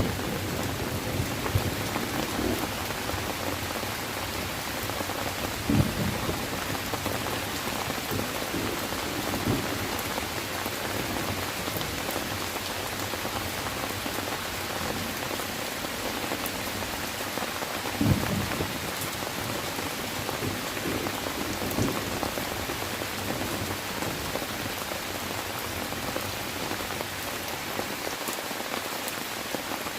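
Steady rain falling, an even dense hiss, with a few brief low thumps standing out from it, the clearest about six seconds in and again about eighteen seconds in.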